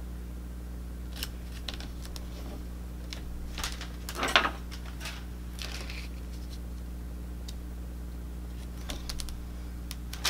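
Clear plastic carrier sheet of iron-on vinyl being peeled off by hand, giving short scattered crinkles and rustles, the loudest about four seconds in, over a steady low hum.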